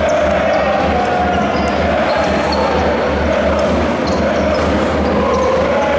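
Large crowd of basketball fans chanting loudly and continuously in an indoor arena, with the ball bouncing and sneakers squeaking on the hardwood court.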